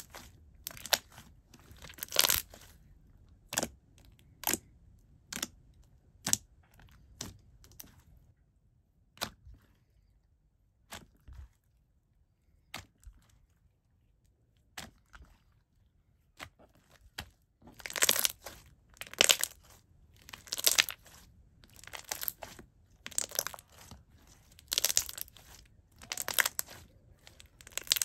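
Hands squeezing and kneading a watery, jiggly milky-clear slime, making wet clicks, pops and squelches. The sounds come singly at first and thin out for several seconds in the middle. Near the end they come in quick, louder clusters.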